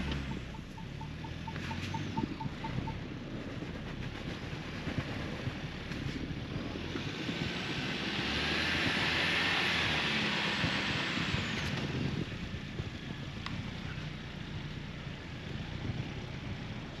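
Two-door Ford Bronco's engine running as it reverses out of deep snow after being high-centred, with tyre and snow noise swelling in the middle. A quick run of about ten short beeps sounds during the first few seconds.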